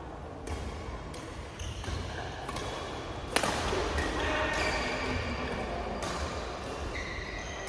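Badminton rally: rackets strike the shuttlecock with sharp smacks every half second to a second, the loudest about a third of the way in.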